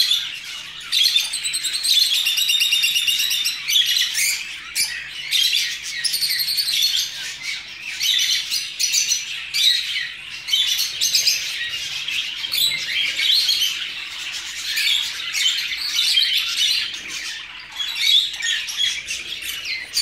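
A crowd of caged budgerigars chattering and warbling nonstop, many high chirps overlapping with no break.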